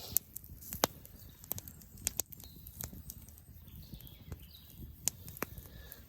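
Irregular sharp clicks and light knocks, scattered unevenly, a few louder ones near the start and just under a second in, over a low steady background rumble.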